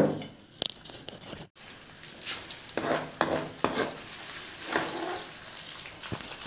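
Sliced onions and green chillies sizzling in hot oil in a metal karahi, stirred with a metal ladle that scrapes against the pan in repeated strokes. A sharp knock opens the sound, the loudest moment.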